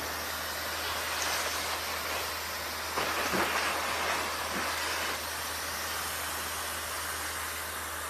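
Handheld hair dryer running: a steady rush of blown air over a low motor hum, briefly louder about three seconds in.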